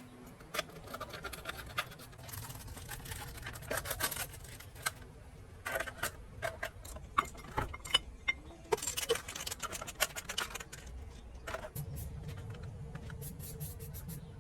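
Small metal parts and hand tools clinking and scraping in a string of irregular clicks, over a low steady hum that grows stronger near the end.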